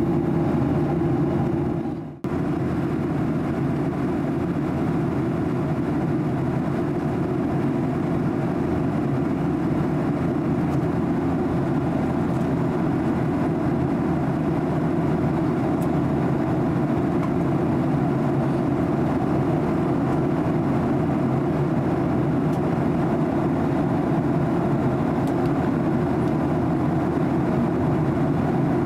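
Steady cabin noise of a Boeing 737-800 in flight: a low, even rush of airflow and hum of its CFM56-7B engines. The sound drops out for a moment about two seconds in, then carries on unchanged.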